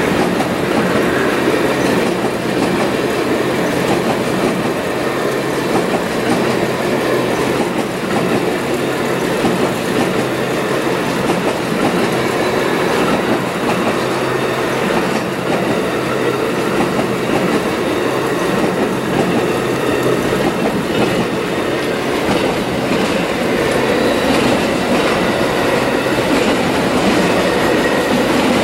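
Amtrak Auto Train cars rolling past at close range: the steady noise of steel wheels on rail under bilevel Superliner passenger cars and then enclosed autorack car carriers.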